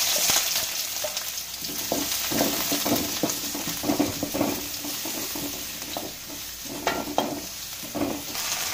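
Chopped onions sizzling in hot oil in a metal kadai, with a spatula scraping and knocking against the pan in short strokes as they are stirred.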